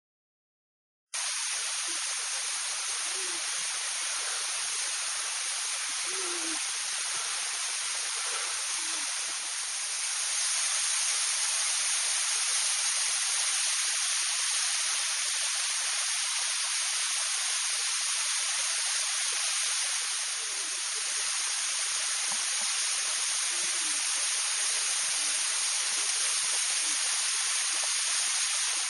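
Waterfall: water falling and splashing in a steady rushing hiss that starts about a second in.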